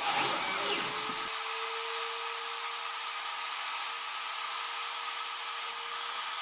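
Wood router on a home-built CNC machine switching on: its motor spins up with a rising whine over the first second or so, then runs steadily at full speed with a high whine.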